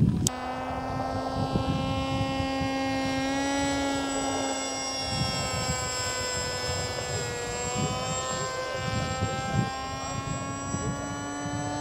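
Radio-controlled model airplane flying overhead, its motor and propeller giving a steady whine whose pitch rises and falls a little with the throttle.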